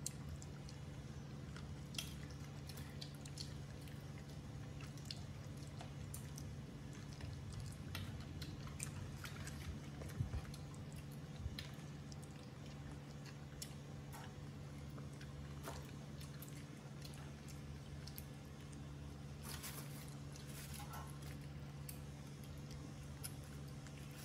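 Baby macaques chewing and smacking on cooked chicken wing meat: scattered small wet clicks and lip smacks over a steady low hum.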